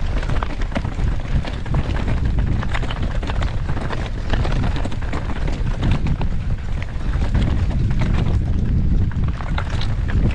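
Mountain bike riding fast down a rough trail, with wind rumbling on the microphone and a dense, irregular clatter of tyres and bike parts rattling over rocks and roots.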